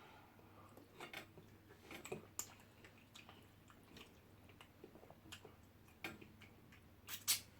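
Quiet eating sounds: irregular soft clicks and smacks of chewing and handling food, with a louder pair of clicks near the end.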